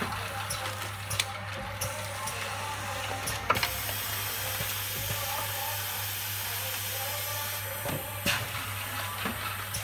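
Automatic tray-filling machine for potted plants running: a steady mechanical hum with irregular clicks and clunks from its pneumatic fork and conveyors. The sharpest knocks come about a second in, about three and a half seconds in, and again around eight seconds.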